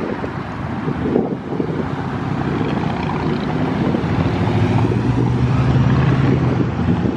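Road traffic passing close by, with wind buffeting the microphone. From about four and a half seconds in, a steady engine hum from a nearby vehicle rises above it.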